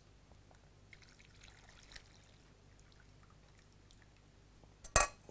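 Milk poured through a metal sieve into a stainless steel pan of roux for a béchamel sauce, a faint trickle, followed near the end by one sharp metallic clink.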